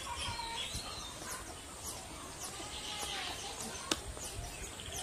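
Weaver birds chirping and chattering at their woven nests: many short, overlapping calls, with a brief fast trill about three seconds in. A single sharp click about four seconds in.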